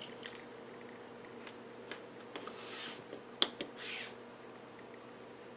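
Faint handling sounds of a replacement transistor being clipped onto a component tester's leads: scattered small clicks and two short rustles, with one sharp click about three and a half seconds in, over a low steady hum.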